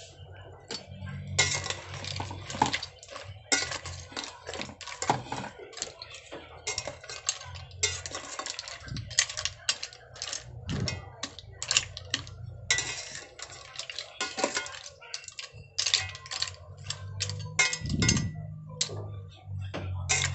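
Metal spoon stirring mussels and greens in an aluminium cooking pot: irregular clinks and scrapes of the spoon against the pot and the mussel shells, over a low steady hum.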